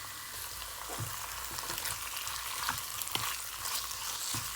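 Chicken cubes sizzling in hot oil with fried onions and garlic paste in a pan. From about a second in, a spoon clicks and scrapes against the pan as they are stirred.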